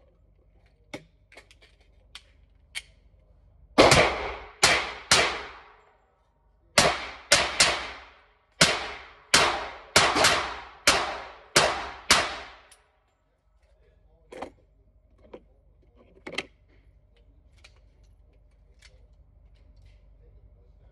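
Glock 30SF .45 ACP pistol fired in a string of about a dozen shots, with a short pause after the first three. Each shot is loud and sharp with a brief ringing tail in the range booth. Light clicks of gun handling come before the shots and a few faint knocks after them.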